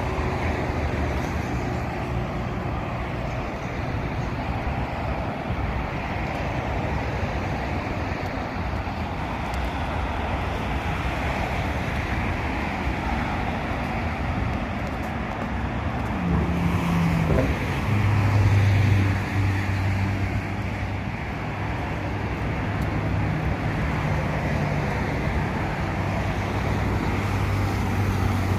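Steady road traffic noise from passing cars. A louder low hum swells about two-thirds of the way through, then fades.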